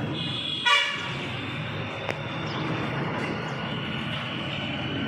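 A short horn toot about a second in, over steady background noise.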